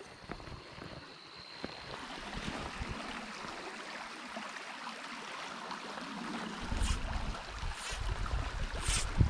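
Shallow stream running over a gravel riffle, a steady hiss of moving water. In the last few seconds a low rumble of wind on the microphone joins it.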